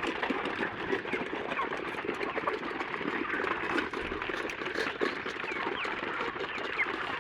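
A flock of chickens clucking and cheeping steadily as they eat at feeding time, with many small clicks among the calls.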